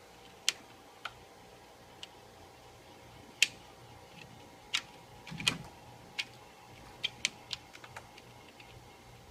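A cat's paws and claws tapping and clicking against a glass door, about a dozen irregular sharp taps, the loudest a few seconds in.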